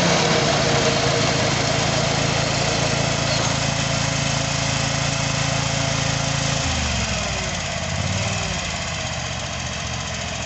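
Kawasaki 27 hp V-twin engine of a Scag Turf Tiger zero-turn mower running steadily, then dropping to a lower engine speed about two-thirds of the way through.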